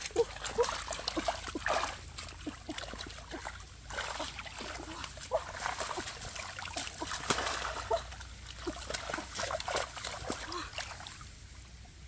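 Hands splashing, scooping and sloshing in shallow, muddy running water, with irregular splashes and small plops as she gropes along the bottom for fish.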